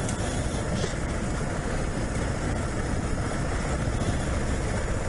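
Dual-sport motorcycle riding a rough dirt trail: steady engine noise mixed with wind and trail noise.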